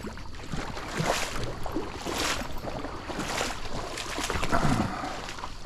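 Boots wading through a flooded creek, a swish and slosh of water with each step, about once a second.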